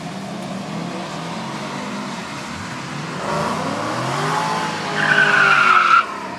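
Two drag-racing street cars launching off the line and accelerating hard down the strip, their engines rising in pitch through the gears. Near the end a loud high-pitched tone lasts about a second and cuts off abruptly.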